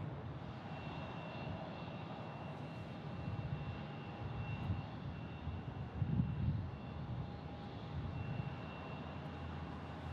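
Jet airliner engines running, a steady low rumble with a thin high whine over it, swelling louder about six seconds in.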